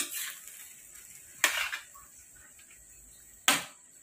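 Pieces of marinated pork dropped by hand into a frying pan, three times, each landing with a sudden hissing splat that fades within about half a second.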